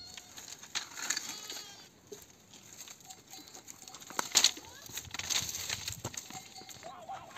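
Bundles of dry cane stalks rustling and clacking as they are handled and stacked onto a pack donkey's load, with several sharp knocks, the loudest about four and a half seconds in.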